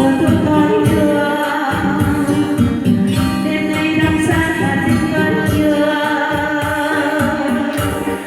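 A voice singing a Vietnamese song over instrumental accompaniment.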